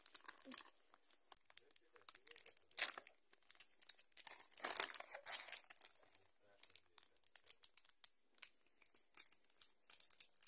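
Thin plastic wrapping crinkling and crackling as small hands pick at and tear open a surprise-gift packet, in irregular bursts with a louder, longer spell around the middle.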